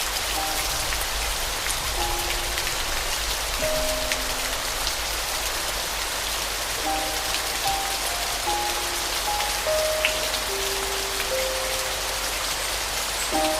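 Steady rain hiss with soft, slow piano notes: a few scattered single notes at first, then a gentle melody from about halfway through.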